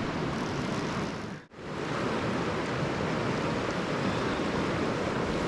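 Steady rush of flowing river water, which drops out for a moment about a second and a half in and then returns.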